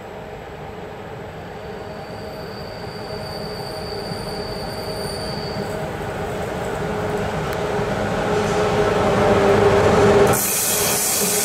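HŽ class 1141 electric locomotive hauling a freight train of tank wagons on a curve, its running sound with a steady mechanical hum growing louder as it approaches. About ten seconds in, the sound switches abruptly to a louder, hissing rush of the train passing close by.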